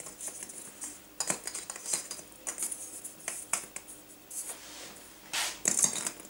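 Christmas baubles clicking and knocking against one another as they are set in place by hand, a scatter of light knocks with a louder cluster near the end.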